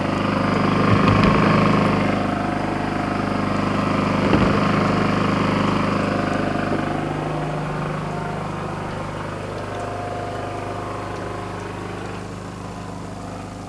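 A portable generator running steadily. About halfway through its engine note drops as it stops racing, and it grows fainter toward the end.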